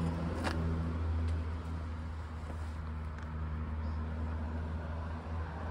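A car engine idling: a steady low hum.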